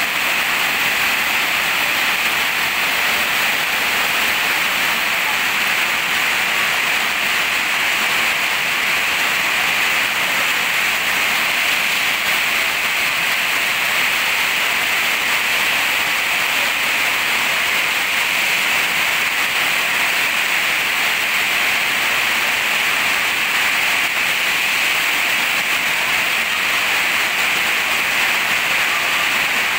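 Heavy rain falling steadily on a corrugated metal roof, a dense even hiss, with runoff pouring off the roof edge.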